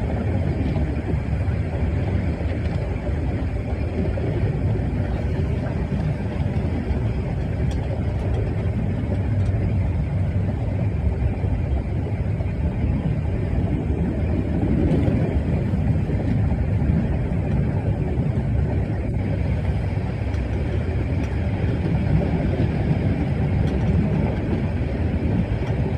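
Harz narrow-gauge train running steadily, with a constant rumble and rattle.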